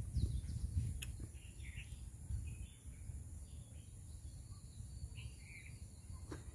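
Quiet rural outdoor background: a steady low rumble with faint, scattered bird chirps and a steady high-pitched hiss, and one small click about a second in.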